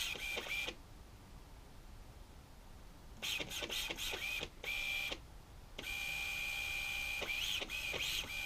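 Small electric drive motor of a 1 lb combat robot spinning in several runs under test, a steady high whine that starts and stops, with a longer run in the second half and brief rises and falls in pitch near the end.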